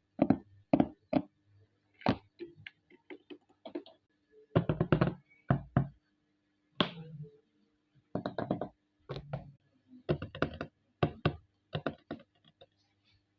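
ASMR tapping and knocking by hand on objects. The short, sharp taps come at irregular intervals, some singly and some in quick runs of several.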